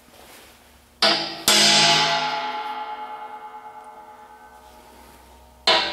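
Hammer striking a center punch on the steel pump-mounting plate of an air compressor tank, punching a dimple to start a drill bit. Two sharp strikes about half a second apart about a second in set the tank ringing like a bell, dying away over about four seconds, and another strike comes near the end.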